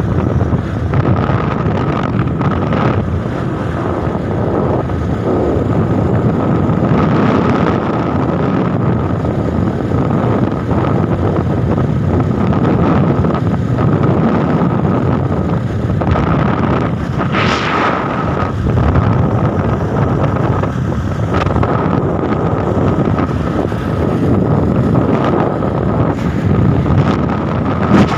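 Wind rushing over the microphone of a moving vehicle: a steady loud rush with a faint steady whine through it and a brief louder hiss about two-thirds of the way through.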